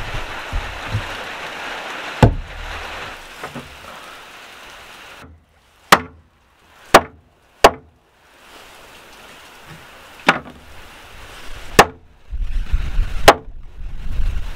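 Small hatchet chopping pork ribs into pieces on a wooden board: six sharp single chops, irregularly spaced one to two and a half seconds apart. Before them, a steady hiss with one sharp knock about two seconds in.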